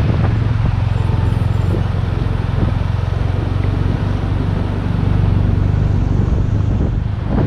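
BMW R1250RT boxer-twin engine running steadily at cruising speed under a rush of wind noise on the microphone.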